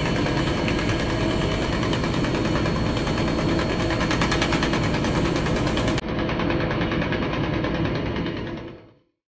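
Diesel locomotive engine running steadily, heard inside the driver's cab with a faint constant hum. About six seconds in the sound changes abruptly to a duller steady noise, which then fades out to silence.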